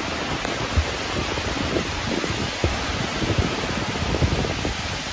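Tropical-storm wind and pounding surf: a steady, dense rushing noise, with wind gusts buffeting the microphone in irregular low thumps.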